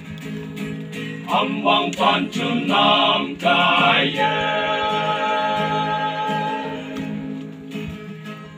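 A group of young men singing a song together, choir-style, with guitar accompaniment.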